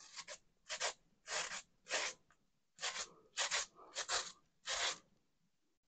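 Raw peeled potato rasped by hand against a grater, a series of short scraping strokes about one every half second, stopping about five seconds in.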